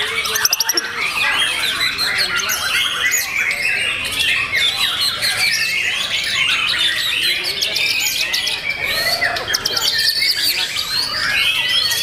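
White-rumped shamas (murai batu) singing together, a dense tangle of varied whistles and chattering phrases with no break, and a fast rattling trill about half a second in.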